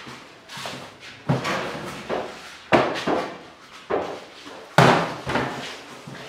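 Large mass of bread dough slapped down and pressed onto a metal worktable during hand kneading: four heavy thumps, about a second or so apart.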